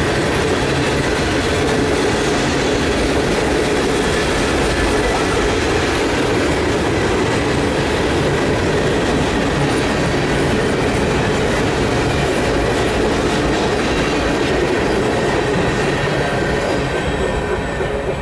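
Mixed freight train's cars rolling past close by: a steady, loud rumble and clatter of steel wheels on the rails, easing slightly near the end as the last cars go by.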